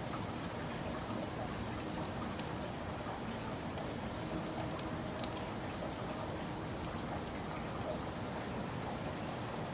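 Steady rain falling, an even patter with occasional sharper drop ticks.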